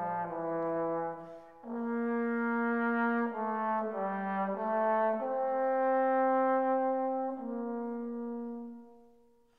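Background music: a slow melody of long held notes that change every second or two, fading out near the end.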